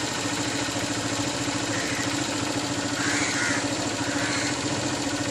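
A steady, engine-like mechanical hum, like a motor idling, with a few faint short calls in the background.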